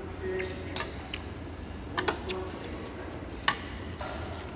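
Metal chopsticks and spoon clicking against a cafeteria tray and bowl while eating: a handful of sharp clicks, the loudest about three and a half seconds in, over a low steady hum.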